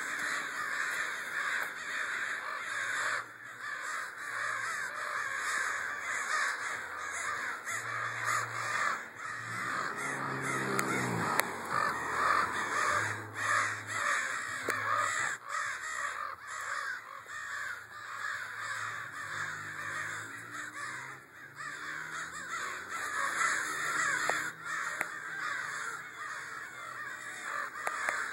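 A large flock of birds calling all at once: a dense, unbroken din of many overlapping calls.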